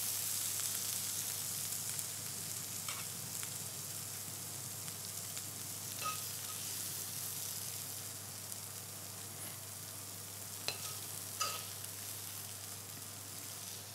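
Hot frying pan of softened red peppers and onions sizzling, the sizzle slowly dying down, with a few light clinks of a metal spoon against the pan.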